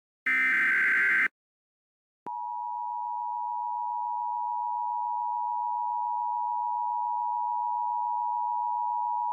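Emergency Alert System broadcast, recreated: the last SAME header burst, a one-second digital data screech. About a second later the EAS two-tone attention signal begins, a steady harsh dual tone that holds without change.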